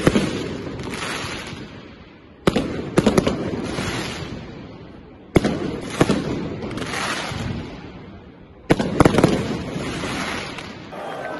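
Aerial fireworks bursting overhead: sharp bangs, mostly in pairs about every three seconds, each followed by crackling that fades away.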